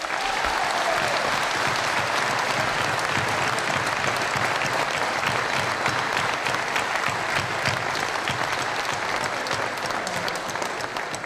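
Audience applauding: dense, steady clapping from many hands that eases off slightly near the end.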